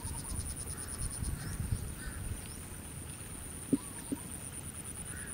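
Quiet open-air ambience with a steady high-pitched whine, a low rumble in the first half, faint birdlike calls now and then, and two soft knocks about four seconds in.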